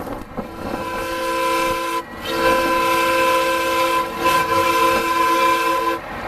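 Chime whistle of a 7½-inch-gauge live-steam model locomotive blown twice, sounding a chord of several notes: a short blast of about a second and a half, then a long blast of nearly four seconds.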